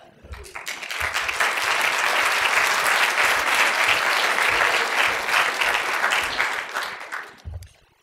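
Audience applauding, building up in the first second and dying away near the end.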